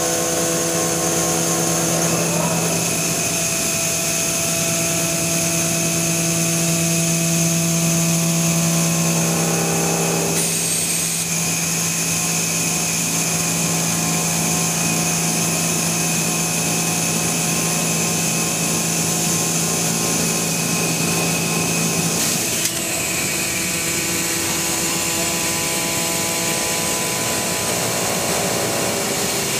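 Milling machine running through a trial cut at a quarter of full speed: a steady mechanical hum with several steady whining tones that change about two seconds in, around ten seconds in and again a little past 22 seconds, plus a higher whine that sounds from about two seconds in until then.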